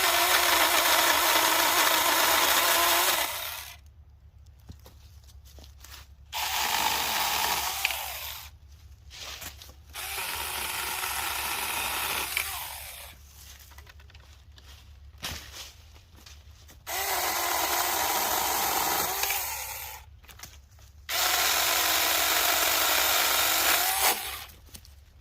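Saker mini battery-powered handheld chainsaw with a 4-inch bar, run in five bursts of a few seconds each as it cuts through small growth. Its motor and chain whine steadily in each burst and stop between cuts.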